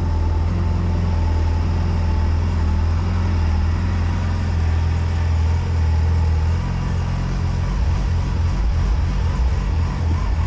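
Yamaha FZ6's inline-four engine running on its first start after winter. About two-thirds of the way through it turns choppy and uneven, stumbling as if about to cut out. The owner puts the rough running down to a totally flat battery or petrol left standing all winter, with spark plugs as a further suspect.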